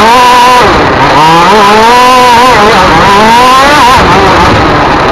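Race car engine at full throttle, very loud, its pitch climbing and then dropping sharply about three times as it shifts through the gears under hard acceleration.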